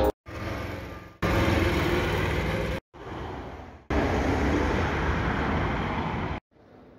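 City street traffic noise from a phone microphone, in several short pieces that cut off abruptly and restart at different loudness.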